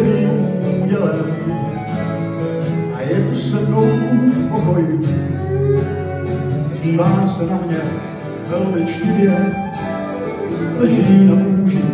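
Live acoustic trio playing: two acoustic guitars strummed together with a violin playing over them.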